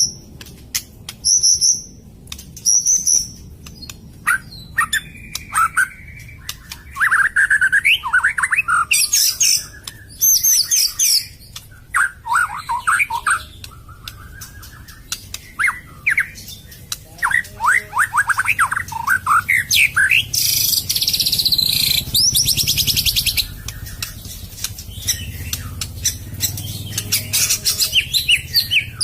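White-rumped shama (murai batu) singing: a long, varied string of short high whistles, runs of rapid trilled notes and, about two-thirds of the way in, a dense harsh rattling phrase, broken by short pauses.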